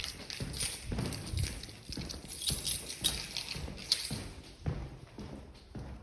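Footsteps walking at a steady pace, about two steps a second.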